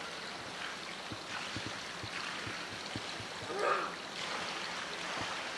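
Steady rush of running water, with a short voice calling out briefly about halfway through.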